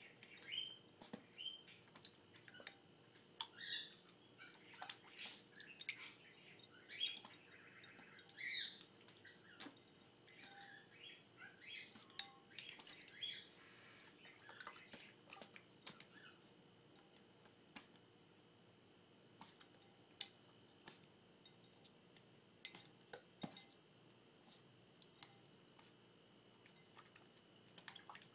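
Puppy pawing and splashing in a ceramic water bowl: faint, irregular small splashes, drips and clicks of paws against the bowl, busiest in the first half. Short high squeaks come and go among them in the first half.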